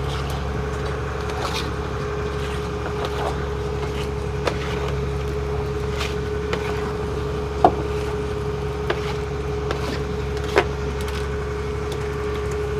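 Fishing boat's engine running steadily with an even low hum and a constant droning tone. A few short, sharp clicks and taps stand out over it, the loudest about halfway through and again a few seconds later.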